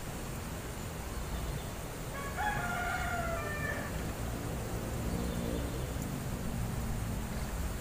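A rooster crows once, a single call of about a second and a half, over a steady low background noise.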